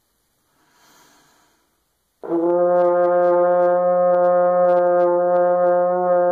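French horn sounding one long held low note, the player's attempt at a low C, starting about two seconds in. The tone is wavy because not enough air is put behind it.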